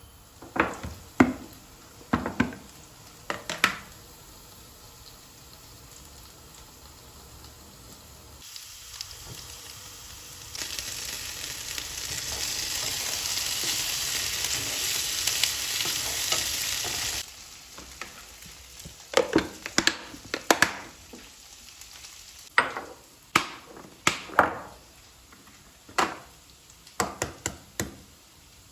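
Sharp knocks and clinks of household objects being handled and set down. About ten seconds in, a steady hiss starts suddenly, runs for about seven seconds and cuts off, followed by more knocks and clinks.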